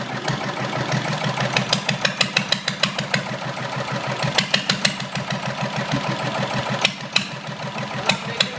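Chopper motorcycle engine running at idle, its exhaust firing sharp pops in uneven clusters over a steady low engine note.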